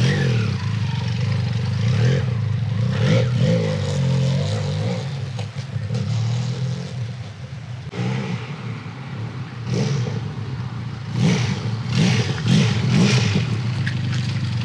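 Benelli Leoncino 500's parallel-twin engine pulling away under throttle. It fades as the motorcycle rides off across the lot, then grows louder again with several revs as it comes back and passes close by.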